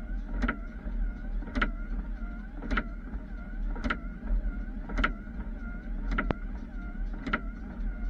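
Plow truck's windscreen wipers sweeping at a steady pace, knocking about once a second as the blades reverse, with the wiper motor's whine rising and falling between knocks. A steady low engine drone runs underneath.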